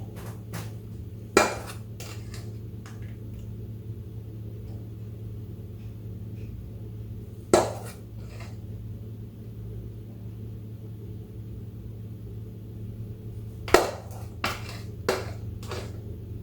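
Utensils clinking against dishes: three sharp clinks several seconds apart, then a quick cluster of lighter ones near the end, over a steady low hum.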